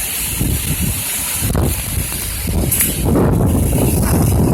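Hurricane-force wind gusting and buffeting the microphone, a loud, continuous rumble that swells and eases.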